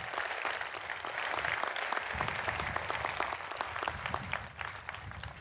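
Audience applauding: a crowd clapping, dense and steady, dying away near the end.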